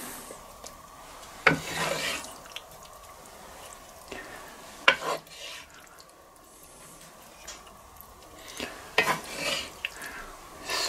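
Wooden spatula scraping and scooping vegetables in a cast-iron skillet and dropping them onto a plate, in a few short bursts with quieter pauses between.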